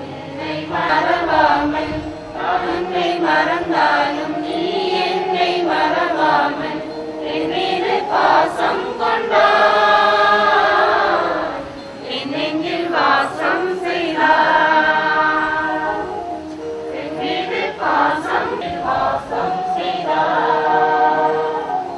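A choir singing a hymn, with long held notes around the middle.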